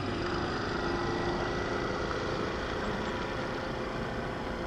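EMD WDG-4 diesel locomotive's V16 two-stroke engine working hard as it accelerates a passenger train, a steady even drone with a few held tones in it.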